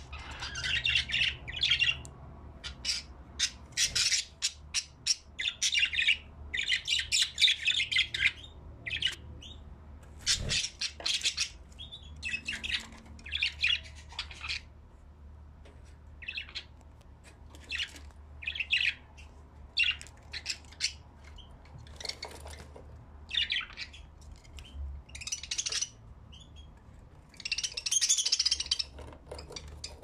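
Budgerigars chattering: a stream of short, high chirps and squawks in irregular bursts, thickest in the first half, with a louder flurry near the end.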